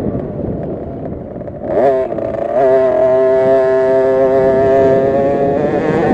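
KTM 50 SX minibike's 50cc two-stroke single revving, heard from the bike itself: lighter throttle at first, then climbing in pitch about two seconds in and held at high, steady revs.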